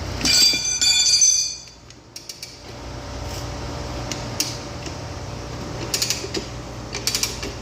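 Rubber tire bead squealing loudly for about a second as it is pulled over the tire changer's duck head and off the motorcycle rim, followed by light clicking and creaking from the manual tire changer as the wheel is worked around.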